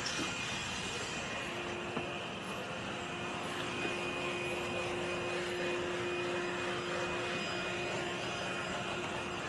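HOTOR 12-volt handheld wet/dry car vacuum running steadily, a constant motor hum with a high whine over the rush of air, with a couple of light knocks about two and four seconds in.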